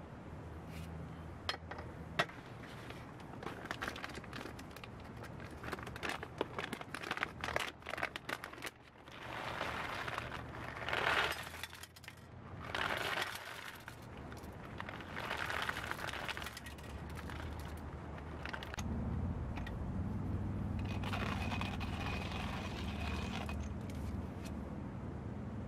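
Handling a stainless-steel hand coffee grinder and a foil coffee bag: clicks and rustles, then the bag crinkling as coffee beans pour into the grinder, about ten seconds in. A little past the middle, a steady low rumble sets in.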